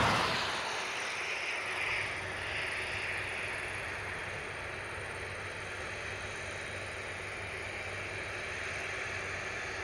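Distant New Holland CX740 combine harvesters running in the field: a steady far-off engine drone under a rush of wind on the microphone, which is louder at the start and fades within the first second.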